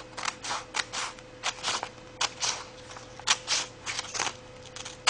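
Scissors cutting along the edge of a sheet of printing paper: a run of short, crisp snips, a few a second and often in pairs.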